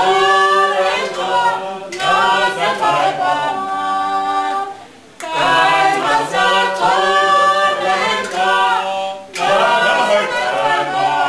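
A small group of women and men singing a cappella in harmony, in sung phrases with a brief break about five seconds in.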